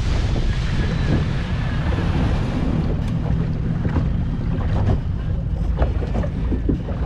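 Outboard motor running as a small boat moves across choppy water, with wind buffeting the microphone and spray hissing off the hull. About three seconds in, the spray hiss dies away as the boat slows, leaving the motor and a few short slaps of water on the hull.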